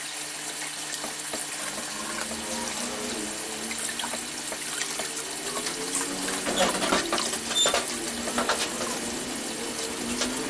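Water trickling and splashing as liquid egg-yolk feed is poured from a plastic bottle into an aerated koi fry tank, the audio sped up. A few sharper splashes or knocks stand out in the second half.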